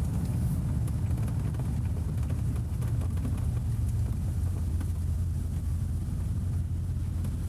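Steady low rumble of a vehicle driving on the road.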